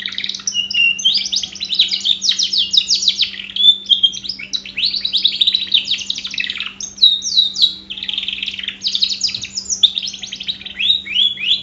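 Domestic canary singing a long, unbroken song of fast trills and quick chirps. It is a 'pancingan' lure song, the kind played to set other canaries singing.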